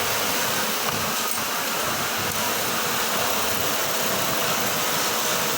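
Steady drone of garment-factory sewing and eyelet machinery running, a dense even mechanical noise.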